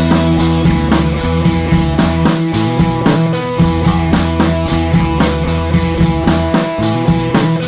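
Background rock music with a steady drum-kit beat.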